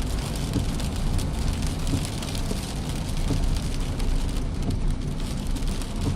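Steady noise of heavy rain, with a low traffic rumble underneath.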